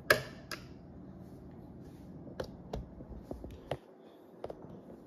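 Handling noise from the camera being picked up and moved: a sharp click at the very start, a second click half a second later, then a scatter of small clicks and knocks.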